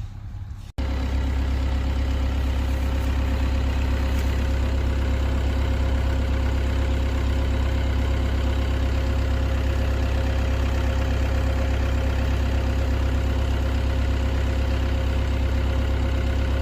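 Excavator diesel engine running steadily with a deep, even hum and no revving. It starts abruptly under a second in.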